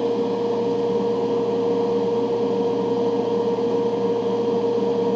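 An electric fan running steadily, a constant hum with one clear steady tone over an even rush of air, venting fumes from plastic being stippled.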